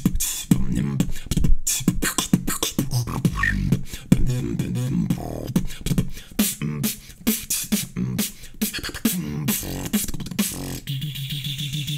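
Human beatboxing: a fast, rhythmic run of mouth-made drum sounds, with kicks, snares and hi-hat clicks, over low hummed tones.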